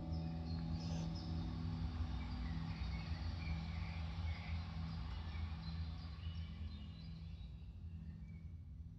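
Closing of an electronic ambient composition played from keyboard and laptop: a steady low drone with scattered short high sounds above it, slowly fading out.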